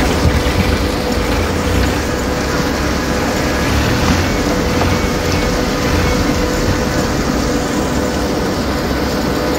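Holmer T4 self-propelled sugar beet harvester running: a steady, loud, deep machine rumble with a constant hum.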